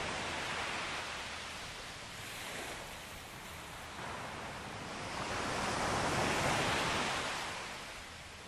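Surf on the seashore: waves washing in and drawing back, one swelling to its loudest about six seconds in and then receding.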